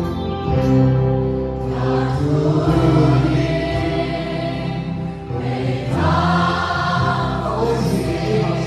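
A large congregation singing a hymn together as a choir of many voices, holding long notes, led by singers on microphones.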